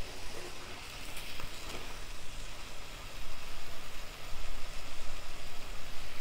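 Chicken pieces frying in oil in a heavy black kadai, sizzling, as a wooden spatula stirs and scrapes them; the chicken is being sautéed in oil alone, with no water added. The frying gets louder about halfway through.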